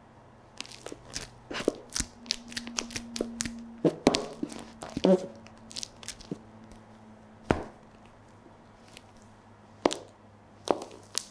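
Stiletto heels crushing and grinding a mashed banana on a hard floor: a dense run of wet crackling and squelching clicks for about five seconds, with a brief squeak near the middle, then a few single sharp clicks.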